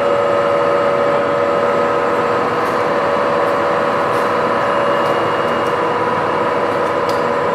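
TOS SN50c lathe running at a high spindle speed, its geared headstock giving a steady whine.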